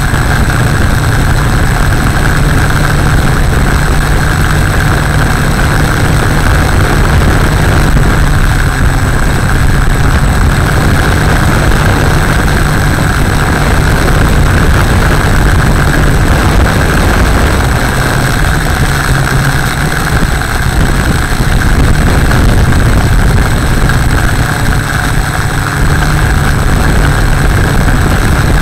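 The six motors and propellers of a Tarot Y550 hexacopter in flight, heard through the camera on the aircraft as a loud, steady drone.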